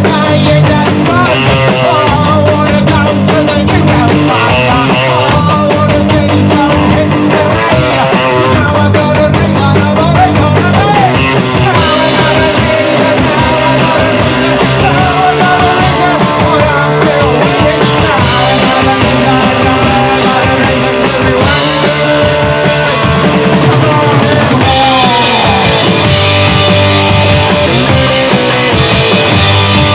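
Loud punk-style rock music, with guitars and a drum kit playing steadily.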